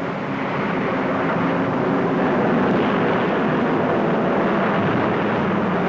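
Four-engined Avro Lancaster bomber's piston engines running steadily in flight, a dense unbroken drone that grows slightly louder over the first couple of seconds.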